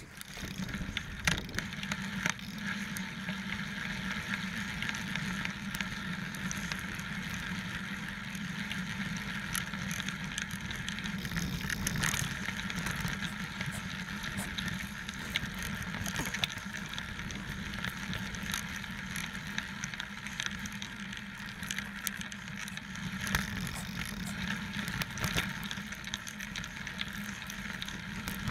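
29er mountain bike rolling along a dry dirt trail: steady tyre and drivetrain noise with frequent small knocks and rattles as it goes over bumps, a sharper knock about a second in.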